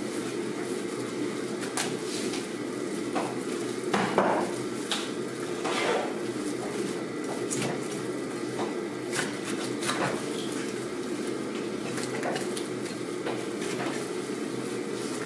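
A knife knocking and scraping on a plastic cutting board while a raw skate is being cut up: scattered irregular taps and clicks, the loudest about four seconds in. A steady low hum runs underneath.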